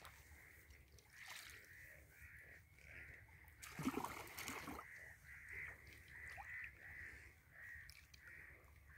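A spade splashing and scraping through mud and shallow water in an irrigation channel, loudest a little under four seconds in. A bird calls over and over in the background, about two short calls a second.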